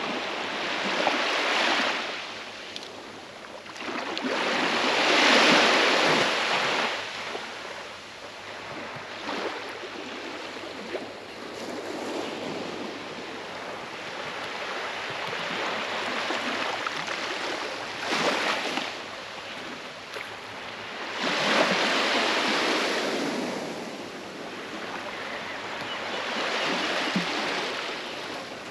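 Small waves washing up onto a sandy beach and drawing back, each wash swelling and fading every few seconds, loudest about five seconds in and again a little past twenty seconds in.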